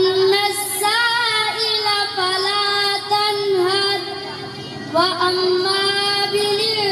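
A boy singing a naat, an Urdu devotional poem in praise of the Prophet, solo and without instruments. He holds long notes that bend and waver, and starts a new line about five seconds in.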